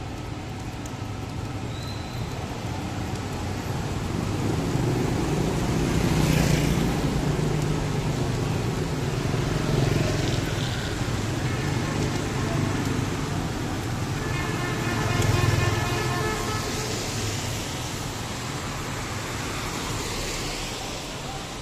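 Street traffic: motor vehicles pass one after another, their engine rumble swelling and fading. A vehicle horn sounds about fifteen seconds in.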